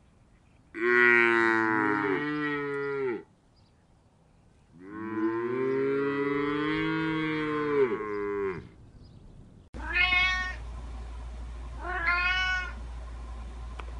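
Two long, drawn-out cow moos. Then, over a steady low hum, a cat meows twice in short calls.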